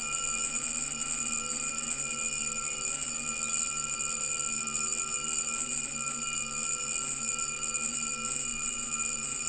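Jaeger-LeCoultre Master Compressor Memovox mechanical alarm wristwatch sounding its alarm: a loud, steady buzz that does not let up.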